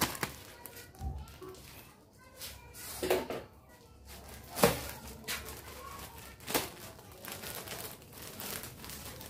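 Clear plastic bag, filled with cotton candy, crinkling as it is handled: a few sharp crackles scattered over a soft rustle.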